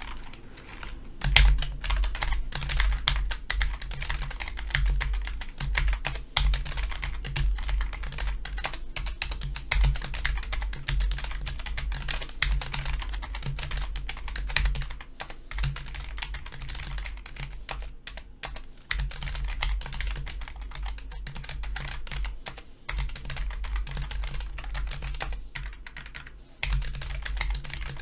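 Continuous fast typing on a Logitech G913 TKL low-profile mechanical keyboard with GL Tactile (brown) switches: a dense run of key clicks with a low thud under each stroke, starting about a second in and easing briefly twice.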